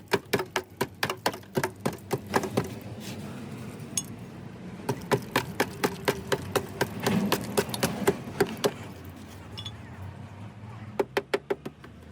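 Hammer tapping on metal in quick runs of sharp strikes, about four or five a second, stopping twice in between.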